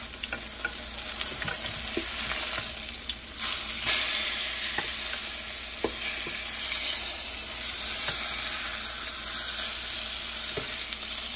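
Flour-dredged beef neck bones searing in oil and butter in a pan, sizzling steadily. Now and then there is a light click or knock as the pieces are turned over.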